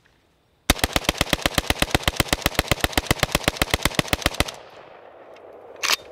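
Short-barrelled AK-pattern 'Krinkov'-type gun firing one long automatic burst of about forty shots at roughly ten a second, starting just under a second in and lasting about four seconds. The echo then dies away, and two sharp clicks follow near the end.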